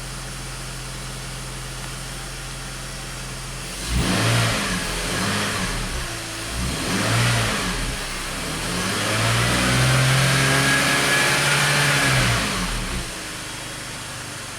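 BMW X5's six-cylinder engine, fully warm, idling steadily, then revved three times about four seconds in: two short blips and a longer rev held for about three seconds, before settling back to idle.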